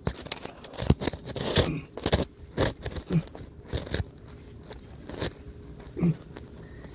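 Band clamp on a flexible plastic pipe coupling being tightened hard with a hand tool: irregular clicks, creaks and scrapes.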